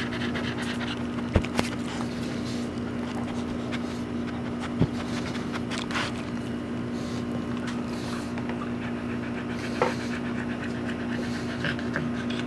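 A nursing mother dog panting steadily over a constant low hum, with a few soft clicks.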